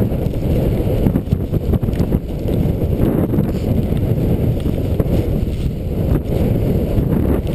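Wind rushing and buffeting over a skier's body-worn camera microphone during a fast descent through deep powder, a steady loud low rumble with a few faint clicks.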